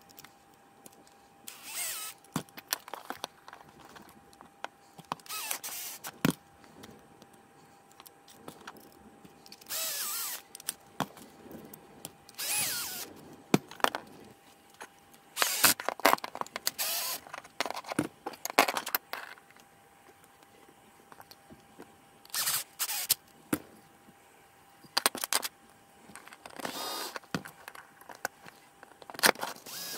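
Cordless drill-driver running in short bursts, about eight of them, driving small screws through steel plates into 3D-printed plastic parts. Sharp clicks of small metal parts being handled come between the bursts.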